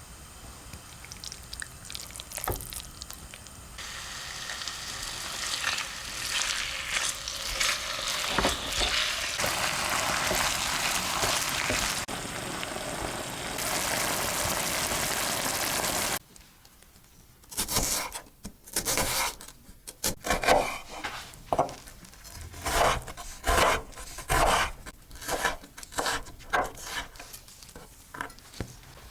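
Food sizzling steadily in hot oil in a pan, starting about four seconds in. After an abrupt cut comes a series of separate sharp knocks, about one a second.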